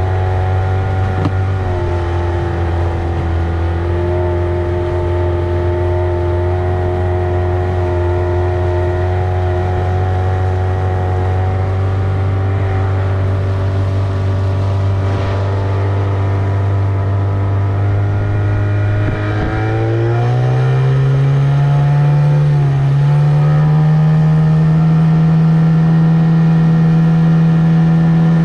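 Tohatsu 25 hp outboard motor running steadily, then opened up about twenty seconds in: its pitch rises to a higher steady speed and it gets louder.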